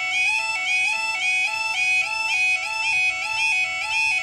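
UK level crossing yodel alarm sounding, a loud two-tone warble stepping up and down about twice a second. It is the warning to road users that the crossing is closing for an approaching train, sounding as the amber light gives way to flashing red.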